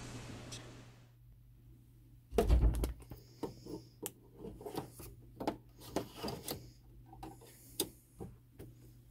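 A heavy thud, then a run of irregular clicks and knocks as a plastic embroidery hoop is handled and fitted onto the arm of a Baby Lock embroidery machine. The clicks are uneven, not the steady beat of the machine stitching.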